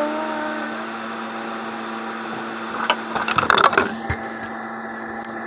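A last sung note trails off over a steady hum, then a quick run of clicks and knocks about three seconds in as the phone recording it is handled.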